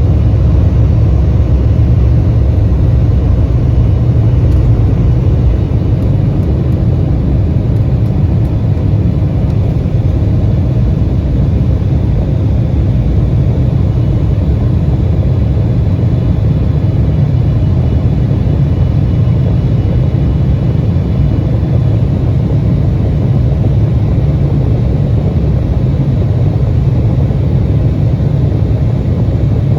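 Steady cabin drone of an Embraer 175 jet airliner in flight: engine and airflow noise heard as an even low rumble.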